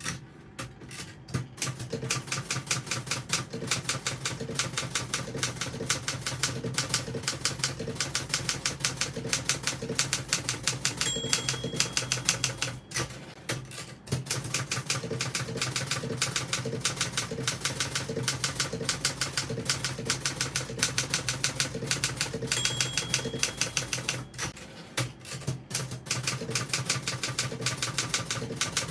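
1977 Olympia SG3 Standard manual typewriter being typed on at a fast, steady touch-typing pace, keys and typebars clacking rapidly. The margin bell rings twice, each time followed by a brief break in the typing as the carriage is returned.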